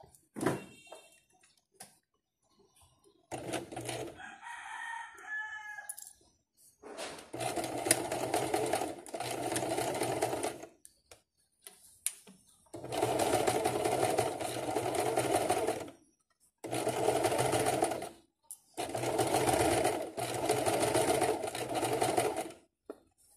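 Domestic electric sewing machine stitching a seam in four runs of a few seconds each, stopping briefly between them as the fabric is guided. Before the machine starts, a rooster crows in the background.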